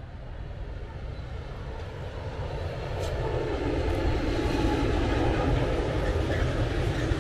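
ČD Cargo freight train with electric locomotives 130 001 and 163 245 at the head, approaching and passing with the rumble of wheels on rail. It grows steadily louder and swells about three seconds in as the locomotives and wagons come by.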